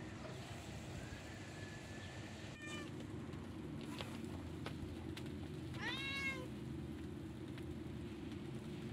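Domestic cat meowing: a short call about six seconds in that rises and then falls in pitch, over a steady low hum.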